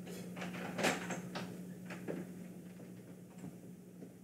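Quiet room with a steady low electrical hum and a few faint clicks and taps in the first second or two.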